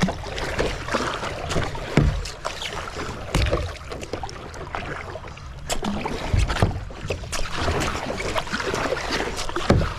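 Kayak on moving water: splashing and sloshing against the hull, with about four dull knocks on the boat.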